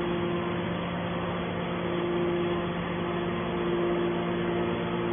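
Hydraulic can baler's power unit, an electric motor driving the hydraulic pump, running with a steady hum.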